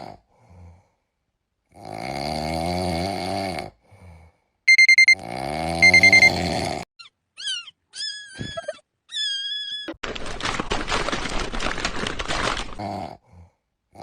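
A run of short meme sound-effect clips. A low, wavering animal-like sound comes twice, with a set of four very loud, quick electronic beeps near the middle. Short squeaky gliding chirps follow, then about three seconds of dense hissing noise.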